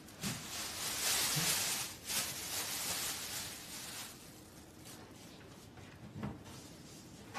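Thin plastic shopping bag rustling as it is handled for about four seconds, then a desk drawer knocking as it is pulled open about six seconds in.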